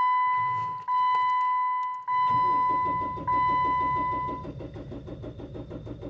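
Jeep Wrangler's 2.8 litre four-cylinder diesel being cranked by the starter motor from about two seconds in, turning over in a fast, even rhythm without firing: a crank, no start, which the mechanic reads as looking like a fuel issue after the engine has sat for a long time. Over the first part a dashboard warning chime sounds as a long tone repeated about every second, stopping partway through the cranking.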